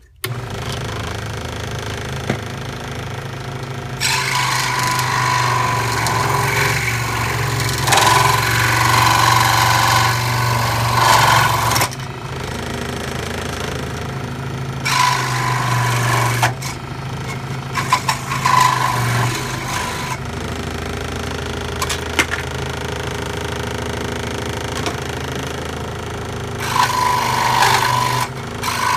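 Scroll saw running with a steady motor hum, its blade cutting through a Nerf Sharpfire's orange plastic shell in several spells of louder, harsher cutting noise: one long spell of about eight seconds, then shorter cuts midway and near the end.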